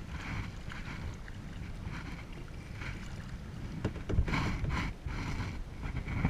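Wind buffeting the microphone and water sloshing against a kayak, with a couple of short knocks about four seconds in and near the end.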